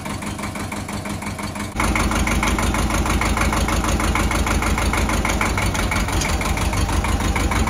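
Ford 1700 tractor's three-cylinder diesel engine idling steadily with an even firing beat; about two seconds in it becomes noticeably louder.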